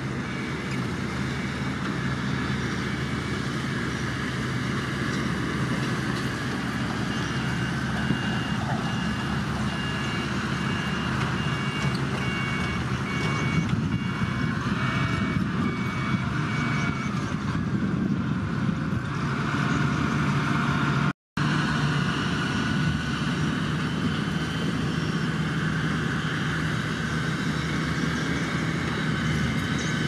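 Komatsu mini bulldozer's diesel engine running steadily under load as it pushes dirt. A faint regular beeping sounds from about a quarter of the way in to past the middle, and the sound cuts out for a split second about two-thirds through.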